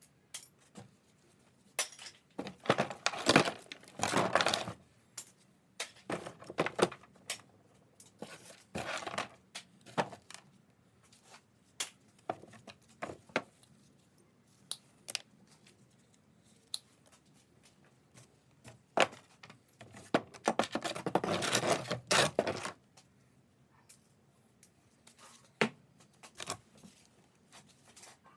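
Small pieces of scrap metal being handled and sorted, clinking and rattling in irregular knocks, with two longer stretches of rattling, about three seconds in and again about twenty seconds in.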